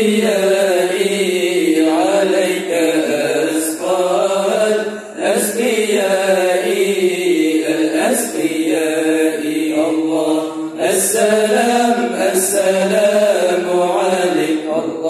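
Acehnese dike: a group of men chanting Islamic devotional verses together into microphones, in melodic phrases a few seconds long with brief pauses for breath.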